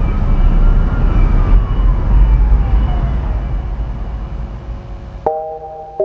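TV programme closing music: a low rumbling swell with a tone that rises, then slowly falls, before bell-like struck chime notes ring out about five seconds in and again at the very end.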